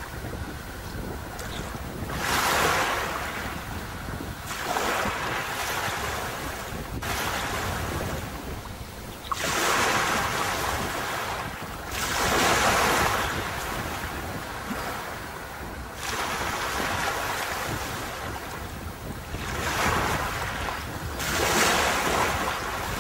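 Sea waves breaking and washing up a beach, the surf swelling loud every few seconds, with a steady low rumble of wind on the microphone.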